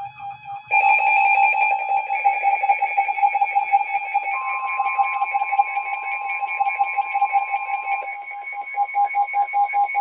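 Emergency Alert System alert tones: a loud electronic tone that wavers rapidly, joined about four seconds in by a second, slightly higher steady tone. The tones announce an emergency broadcast, here a severe thunderstorm warning.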